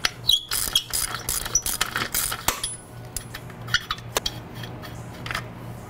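A ratchet and spark plug socket clicking and clinking against metal as the spark plug is unscrewed from a Vittorazi Moster 185 paramotor's cylinder head. The clicks come thick and fast for the first two or three seconds, then turn sparse.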